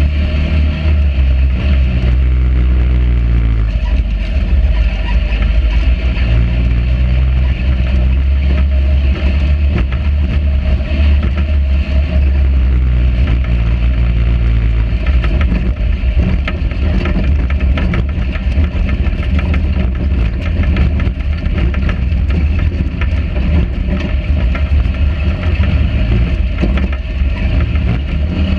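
Sand rail buggy engine running under way over a rough sand trail, its revs rising and falling. The chassis rattles and knocks over the bumps.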